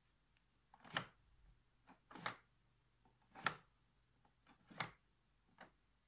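Five short knocks and scuffs, roughly one a second, from a hand handling the underside of an upturned Hoover upright vacuum cleaner, which is switched off.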